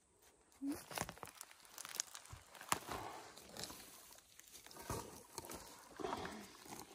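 Irregular rustling and crunching of dry forest-floor litter and dirt, with a few sharp snaps, starting about a second in.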